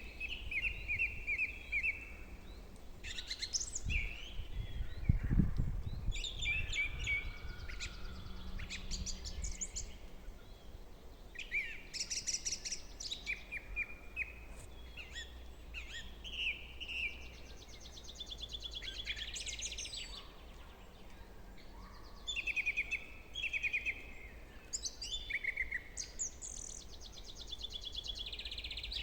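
Several songbirds singing in turn, with overlapping short trills and chirps. There is a brief low rumble about four to six seconds in.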